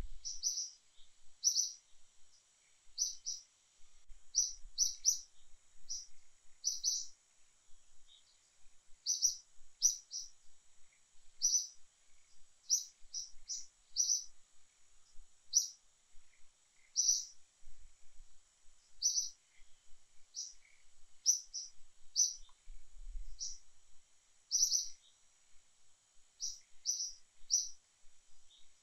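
A bird calling over and over: short high chirps in pairs and threes every second or two, over a faint steady high-pitched hum.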